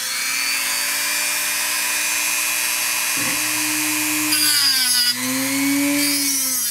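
A small handheld power tool running steadily while cutting away the mounting of an old multi-section can capacitor on a steel amplifier chassis. Its motor pitch sags under load about three seconds in and again about five seconds in, and a harsher grinding noise comes in near the middle.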